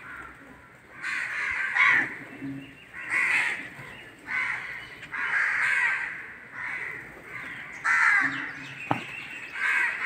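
Crows cawing over and over: harsh calls about half a second to a second long, coming every second or so. There is one sharp click about nine seconds in.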